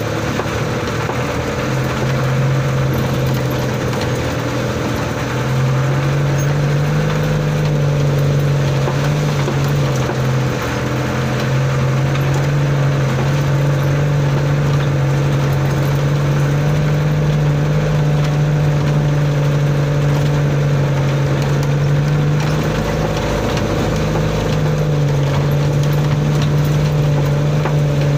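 Old truck's engine heard from inside the cab, running steadily under load while driving over rough muddy ground. It gives a low drone that steps up in pitch about five seconds in and dips briefly twice later.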